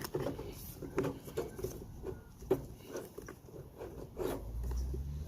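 Plastic housing of a small gas leaf blower being handled and worked apart by hand, giving a string of irregular light clicks and knocks.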